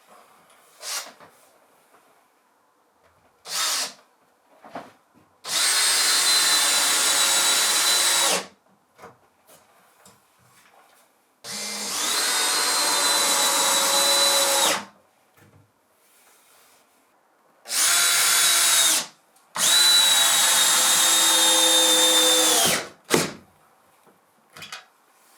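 Electric power drill run in four bursts of one to three seconds each, its motor whine steady and then dropping in pitch as the trigger is let go. A few short knocks and clicks fall between the bursts.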